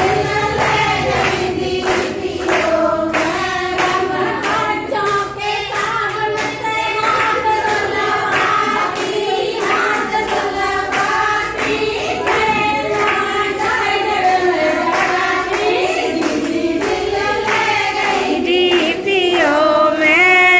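A group of women singing a song together, with hand claps keeping the beat.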